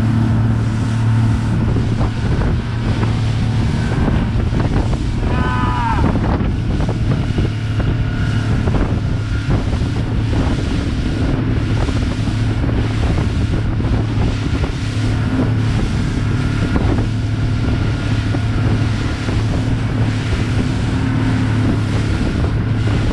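Small fishing boat's motor running steadily under way, with water rushing past the hull and wind buffeting the microphone. A brief high cry sounds about six seconds in.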